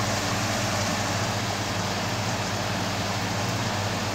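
Hot oil sizzling steadily in a karahi as boiled chicken pieces fry in onion masala, with a low steady hum underneath.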